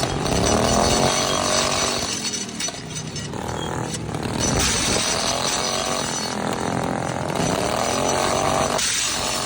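Small lawnmower engines running and revving, their pitch rising and falling about three times.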